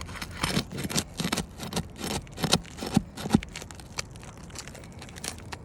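Asphalt roofing shingle being pried up around a nail and tearing: a run of irregular crackles and snaps, the sharpest about three seconds in. As soon as it is pried, the shingle rips rather than lifting free.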